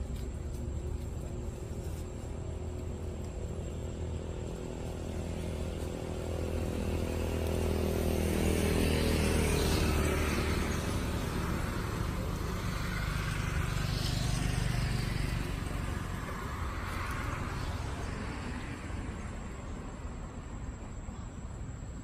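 Motor vehicle engine noise passing by: a low rumble that swells to its loudest about ten seconds in, rises again a little later, then fades.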